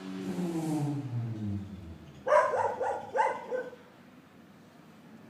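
A low humming tone that drops steadily in pitch over the first two seconds, then two loud bursts of short animal calls, about two and three seconds in.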